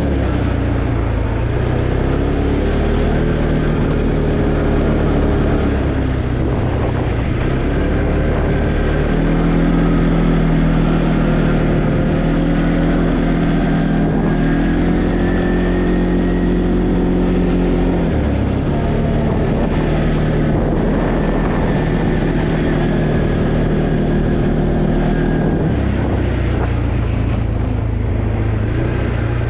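Arctic Cat Alterra 700 ATV's single-cylinder four-stroke engine running under way, its engine speed rising and falling several times as the throttle changes.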